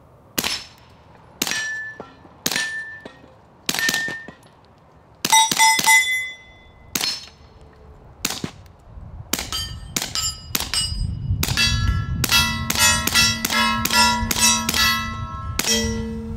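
Suppressed Smith & Wesson FPC 9mm carbine firing at steel targets. Each shot is a sharp report followed by the ringing clang of hit steel. The shots come one at a time, about a second apart, then in a fast string of about three a second for the last five seconds.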